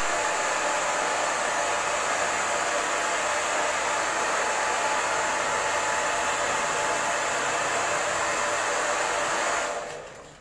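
Electric pet blow dryer running steadily: a loud, even rushing noise that dies away near the end.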